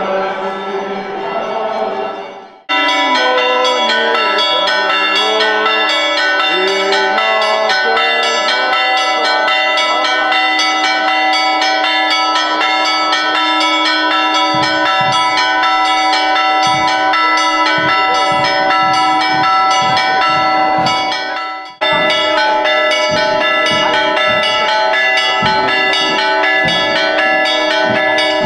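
Greek Orthodox church bells ringing a rapid, continuous festive peal, many strokes a second. The peal starts abruptly about three seconds in, after chanting voices fade out, and breaks off briefly before starting again about three-quarters of the way through.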